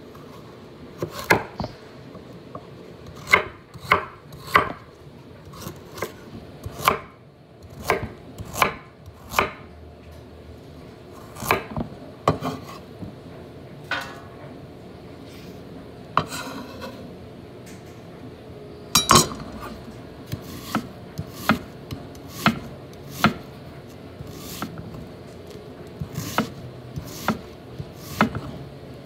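Kitchen knife chopping carrot, then onion, on a wooden cutting board: irregular sharp knocks of the blade striking the board, with short pauses between runs of cuts.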